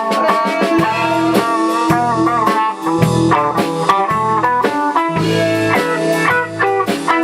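A rock band plays an instrumental passage without vocals: a guitar carries the melody over bass and a drum kit keeping a steady beat.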